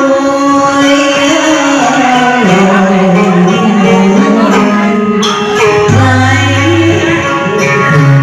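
Cải lương theatre music: a voice singing long held, sliding notes over plucked-string accompaniment, the melody dropping lower about six seconds in.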